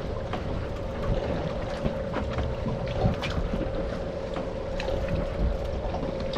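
Wind buffeting the microphone and water moving against a boat's hull, under a steady hum, with scattered small clicks and knocks.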